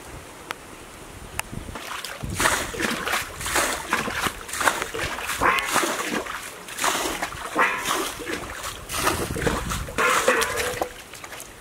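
Hands splashing and sloshing through shallow muddy water in irregular bursts, scooping at the mud while feeling for fish, starting about two seconds in.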